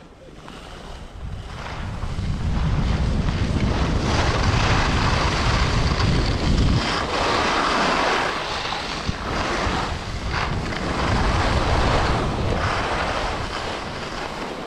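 Wind rushing over the microphone with skis sliding and scraping on snow during a downhill run, growing louder over the first few seconds as speed builds.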